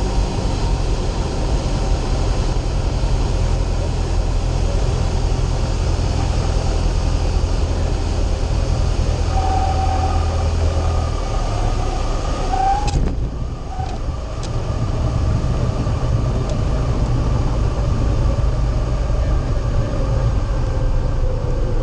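Single-engine light aircraft's propeller engine running steadily at low power through the final approach and landing, heard from inside the cockpit. Two short high tones come just before a sharp knock about thirteen seconds in, where the engine sound turns duller. A slowly falling tone follows near the end as the plane rolls out on the runway.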